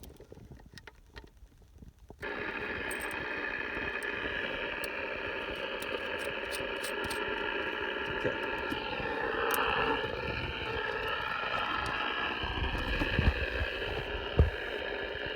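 Cobra 29XLR AM CB radio's speaker coming alive with a steady hiss of receiver static about two seconds in, after a moment of quiet with a few small clicks. A faint wavering signal rises out of the static near the middle.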